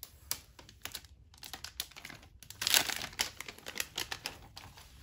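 Plastic shrink wrap being torn off a phone box by its pull strip: an irregular run of crinkling and crackling, loudest and densest about two and a half to three seconds in.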